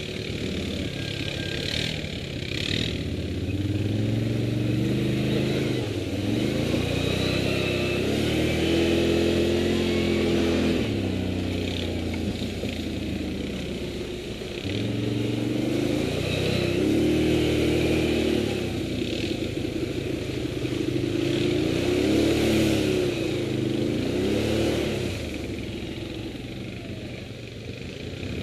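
Quad (ATV) engine running under load on a rough dirt track, its revs rising and falling repeatedly as the throttle is opened and eased, about three times over the stretch.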